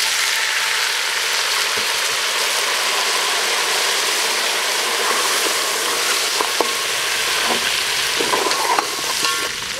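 Water poured onto lamb trotters frying in hot oil in an aluminium pot, making the oil sizzle and hiss steadily as it turns to steam. A wooden spatula stirs the pot, with a few light knocks against the metal in the second half.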